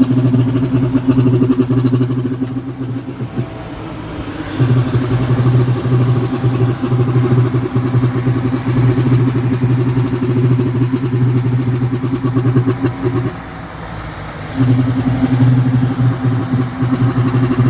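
2000 Ford Expedition's 4.6-litre two-valve V8 running at idle with a rapid pulsing noise from the air intake that sounds like an exhaust leak. The noise is intermittent: it cuts out twice for over a second, about three seconds in and again about thirteen seconds in, then starts back up. It is tied to the idle speed, which sags while the noise plays and comes back up when it stops. The cause is unknown to the owner.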